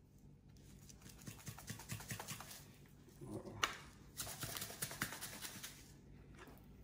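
A spice-rub shaker bottle being handled and its cap worked open: quick runs of small plastic clicks and the rub rattling inside, with a short squeak and a sharp snap about halfway through.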